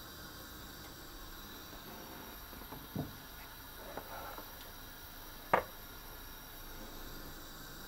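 Kitchen utensils knocking and scraping while spaetzle batter is pressed through a grater over a pot: three short knocks about a second apart, the last and loudest about two-thirds of the way in, with a brief scrape after the second, over a steady low hiss.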